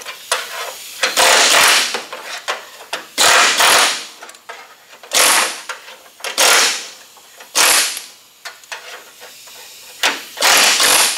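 Pneumatic air chisel with a spot-weld buster bit hammering against sheet steel in about six short bursts, each under a second long, with pauses between. The bursts are breaking the factory spot welds that hold the rusted inner fender-well section in place.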